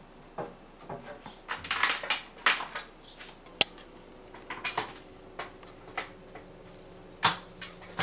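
Irregular clicks, knocks and clatter of a kitchen ventilation fan's parts being handled during cleaning, busiest in the first half. A faint steady hum comes in about halfway.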